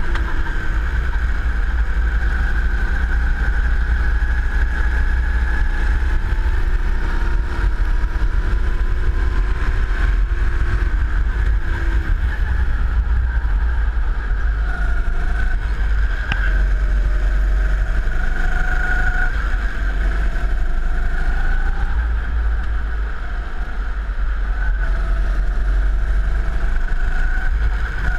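Go-kart engine running at speed, heard from on board, its pitch rising and falling as the kart brakes and accelerates through the corners, over a heavy steady low rumble.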